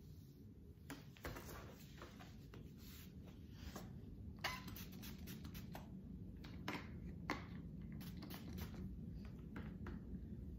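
Handling sounds of plastic: scattered crinkles, crackles and clicks as a clear plastic bag and a plastic spray bottle are picked up and handled. A few sharper clicks stand out near the middle and again later on.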